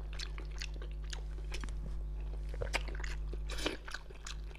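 Close-miked chewing of soft braised fish, with small wet mouth clicks at an irregular pace.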